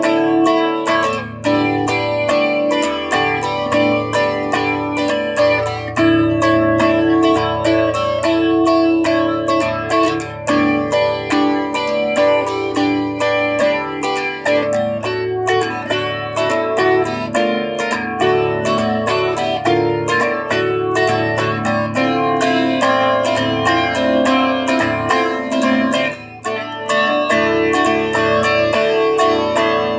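Solo guitar playing an instrumental piece: a run of picked notes ringing over a steady bass line.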